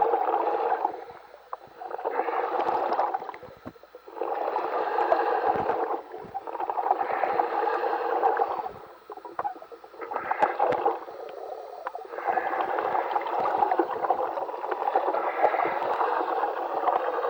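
A diver breathing through a surface-supplied dive helmet, heard over the dive radio: a series of gurgling breaths, each lasting one to two seconds, with short pauses between.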